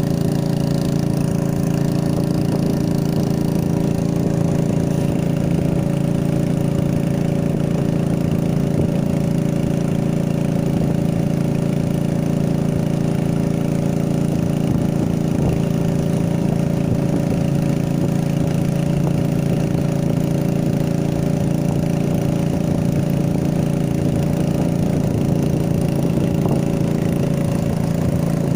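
An engine running steadily at one constant speed, with a loud, even hum that never changes.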